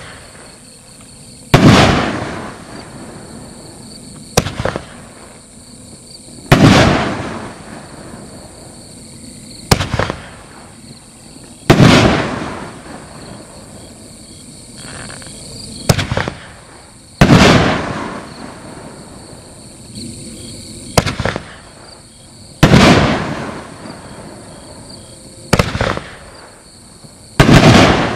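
Consumer fireworks cake (Secret of Mask A5239) firing its shots one by one: each a sharp launch crack, then about two seconds later a loud bang as the shell bursts, fading over about a second. Six shots come at roughly five-second intervals.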